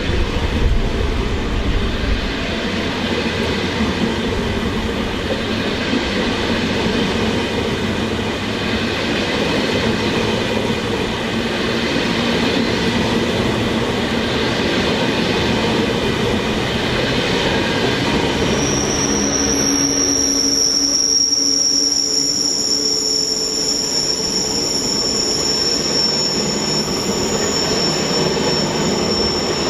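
A train running through the station, with dense rolling and rumbling noise. About two-thirds of the way in a steady high-pitched squeal sets in and holds.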